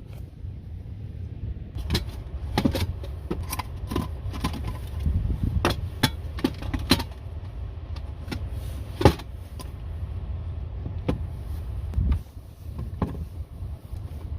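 Scattered light knocks and clinks of wood shavings, small firewood pieces and stove gear being handled and set in place, the loudest knock about nine seconds in, over a steady low rumble of wind buffeting the microphone.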